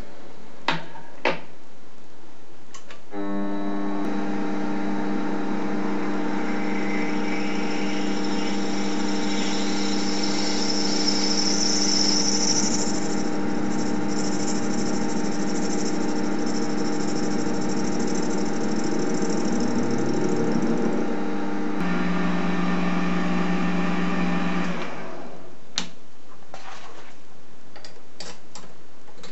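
Two clicks of metal on metal, then an Optimum D180x300 Vario mini metal lathe starts about three seconds in and runs with its chuck spinning at about 400 rpm, giving a steady multi-tone machine whine with a hiss on top. Its tone shifts lower and louder shortly before it stops near the end, and a few light clicks follow.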